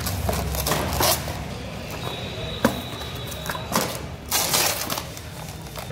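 Plastic packaging around boxed bathroom fittings crinkling and rustling in bursts as the items are handled, with a single sharp knock partway through.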